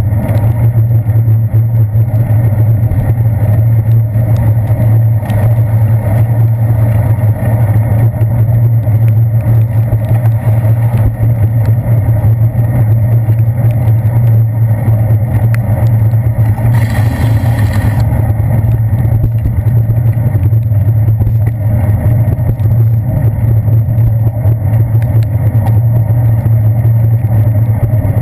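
Steady, loud low rumble of wind and road vibration picked up through a handlebar-mounted GoPro Hero 2 on a bicycle riding over wet pavement, with a brief louder hiss a little past the middle.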